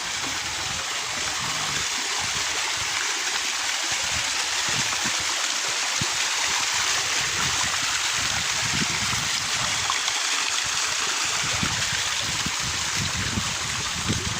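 Waterfall: water pouring and splashing with a steady rushing hiss.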